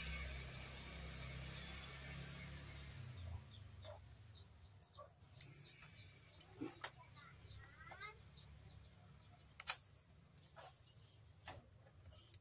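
Sharp clicks and knocks from a circuit board and its plastic wire connectors being handled and plugged in. Behind them a bird chirps faintly in a quick run of short falling notes, a few a second.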